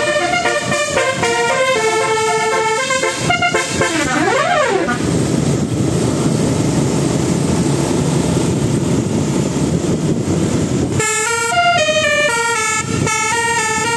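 Bus telolet horn, a multi-tone air horn, playing a melody of quick stepped notes, then a siren-like sweep rising and falling about four seconds in. A steady rushing noise follows for about six seconds, and the horn tune starts again about eleven seconds in.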